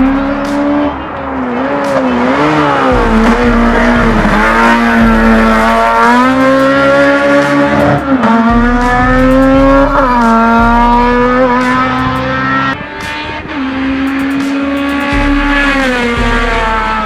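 Naturally aspirated 1.6-litre four-cylinder engine of a Honda Civic EG hill-climb race car running hard at high revs. Its pitch climbs through each gear and drops sharply at several upshifts.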